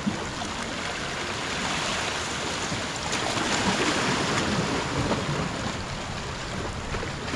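Small sea waves washing steadily into the shallows and over rocks: a continuous rush of surf.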